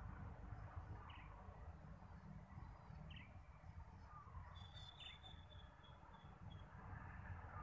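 Faint bird calls over a low background rumble: short chirps about one and three seconds in, then a high, thin call about halfway through that trails off in a string of short repeated notes.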